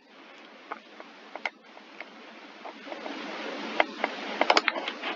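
Scattered sharp clicks and taps over a steady hiss that grows gradually louder, the clicks coming more often near the end.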